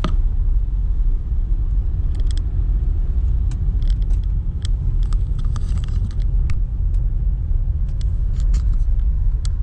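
A car being driven: a steady low rumble of engine and road noise, with scattered light clicks and rattles over it.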